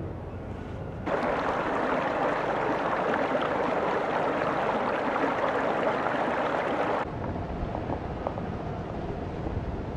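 Shallow river water flowing over rocks: a steady rushing babble that starts abruptly about a second in and cuts off about seven seconds in, with a quieter low rumble around it.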